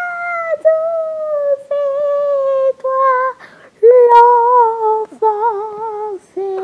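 A high-pitched voice humming a slow tune of long held notes that step gradually lower, with short breaks between them and a wobble in the notes near the end.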